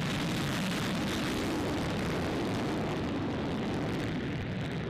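Panavia Tornado GR4's twin RB199 turbofan engines in full afterburner on the takeoff roll, a steady dense jet noise. Its highest hiss fades near the end as the jet moves away.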